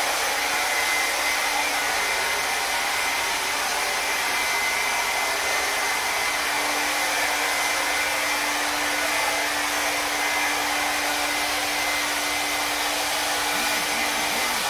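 Hair dryer blowing steadily: an even rushing noise with a faint high whine.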